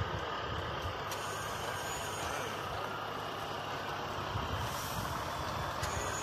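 Heavy truck hauling a wind turbine blade on an extended trailer rolls slowly past, with a steady rumble of engine and rolling tyres.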